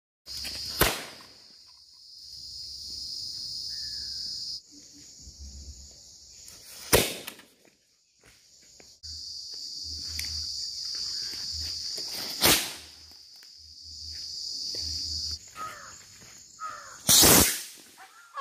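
Firework rockets going off, four sharp bangs a few seconds apart, the last the loudest. A steady high-pitched hiss cuts in and out between them.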